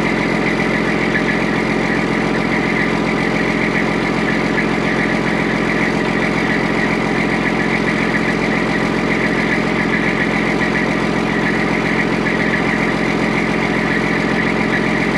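Kenworth T800 semi truck's diesel engine idling steadily.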